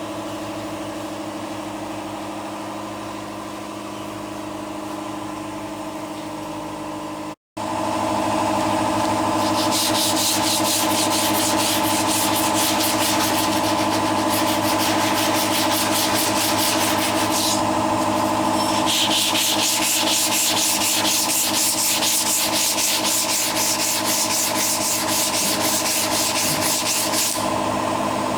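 Power sander running with a steady motor hum while it grinds against a car body panel: rough abrasive scrubbing in two long passes with a short break between them. The sound cuts out completely for a moment about seven seconds in.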